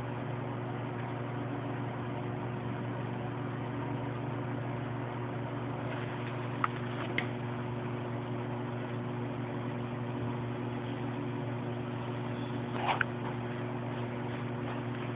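Steady machinery hum with several low, even tones under a wash of noise, with a few short ticks about halfway through and again near the end.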